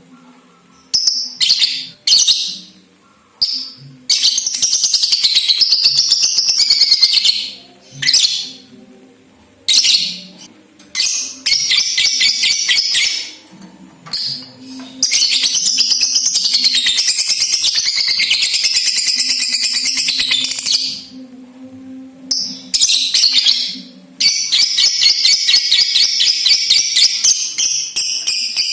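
Lovebird chattering loudly, with short calls and several long, very fast trills of a few seconds each: the continuous 'ngekek' song that lovebird keepers prize.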